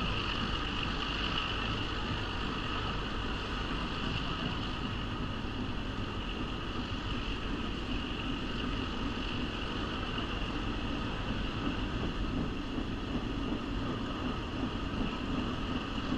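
Steady running noise of a passenger train, heard from its open-air car as it climbs a grade: wheels on the rails and a low rumble, with a steady high-pitched hiss over it and wind on the microphone.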